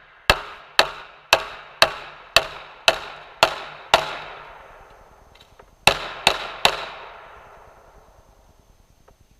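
Glock pistol in .45 firing: eight shots about half a second apart, a pause of nearly two seconds, then three quicker shots. Each shot trails off in a long echo.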